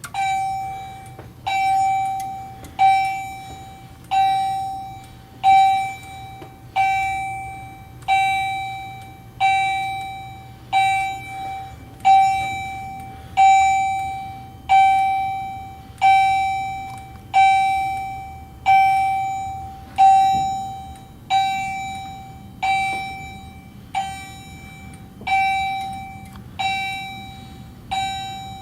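Fire alarm chime strobe sounding during a drill test, striking one ringing tone about every 1.3 seconds, each strike dying away before the next.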